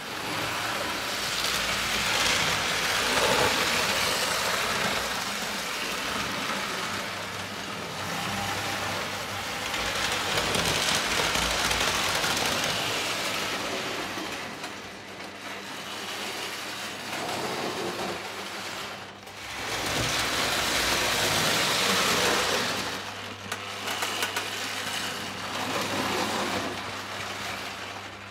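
Postwar Lionel O gauge steam locomotive and freight train running on three-rail tinplate track: a continuous rolling rumble of wheels on rail and the electric motor, growing louder and fading as the train comes round the loop, about three times, with a steady hum underneath.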